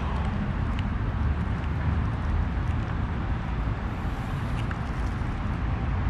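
Steady low rumble of outdoor background noise, with no clear single event.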